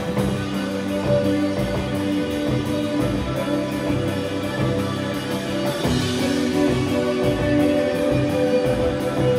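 Live band playing amplified music: electric guitars holding sustained notes over a steady drum-kit beat.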